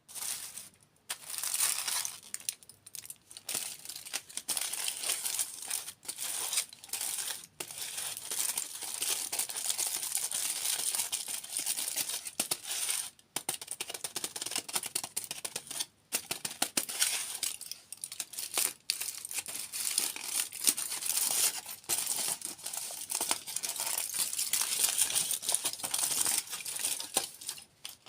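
Close-miked crinkling and rustling of plastic or paper packaging being handled and torn open, near-continuous with several short pauses.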